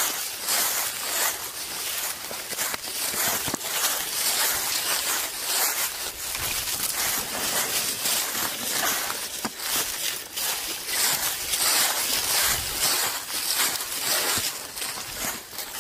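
Footsteps crunching and rustling through dry fallen leaves on a forest floor, an irregular run of crackling steps.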